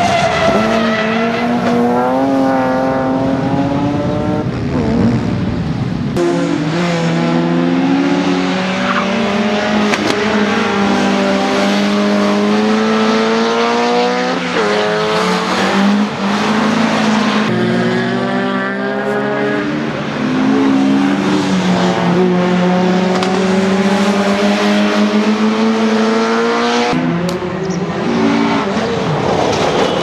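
Rallycross car engines revving hard, the pitch climbing and dropping again and again with each gearshift and lift. The sound changes abruptly about six seconds in and again near the end as it switches to another car.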